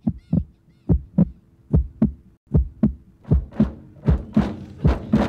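Heartbeat sound effect: paired lub-dub thumps in an even rhythm, about one pair every three-quarters of a second, over a faint steady hum. Toward the end the beats grow brighter as more sound builds around them.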